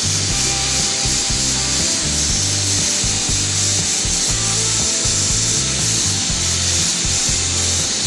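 Gravity-feed paint spray gun running, a steady hiss of air and atomised paint, with background music and a stepping bass line underneath.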